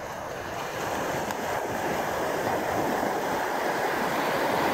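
Small sea waves breaking and washing through the shallows: a steady rush of surf that grows slightly louder toward the end.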